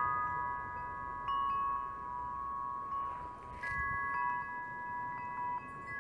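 Chime-like electronic tones: several steady pure notes sound together, each switching on and off at its own moment, over a faint low hiss, with a short burst of hiss about three and a half seconds in.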